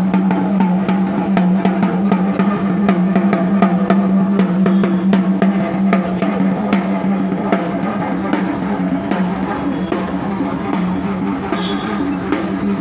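Dholak, the Indian two-headed hand drum, playing a quick continuous rhythm of sharp strokes over a steady low hum.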